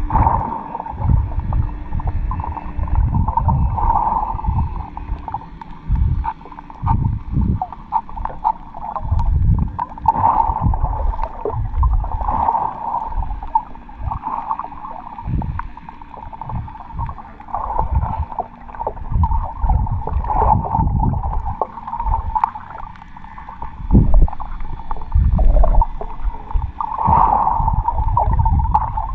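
Muffled underwater sound of snorkelling over a reef: water gurgling and sloshing against the camera, with irregular low thumps and rumbles and a steady mid-pitched hum that swells and fades.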